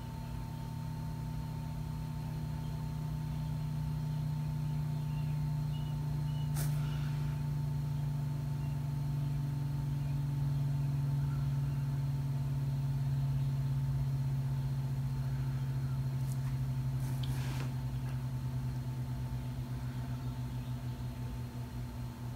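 A steady low machine hum, engine-like, that swells slowly through the first half and then eases off, pulsing lightly near the end. Two faint clicks break through it.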